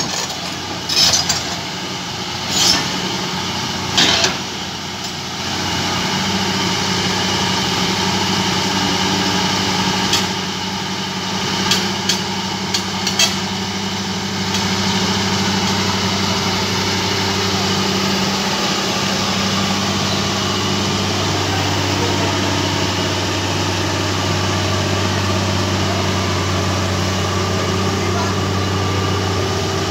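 Komatsu PC200 hydraulic excavator's diesel engine running steadily under load as the machine crawls up the ramp onto a lowbed trailer. Its note shifts a little past the middle. A few sharp knocks come in the first fifteen seconds.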